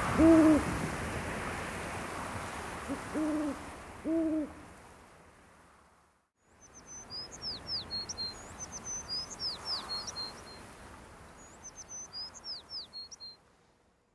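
An owl hooting three times, low and hollow, over a steady hiss that fades out. After a brief silence, a small songbird twitters in two quick runs of high, falling chirps.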